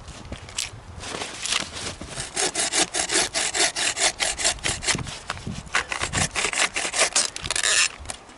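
Hand saw cutting through a piece of firewood, with quick, even push-pull strokes at about four a second. The sawing starts about a second in and stops just before the end.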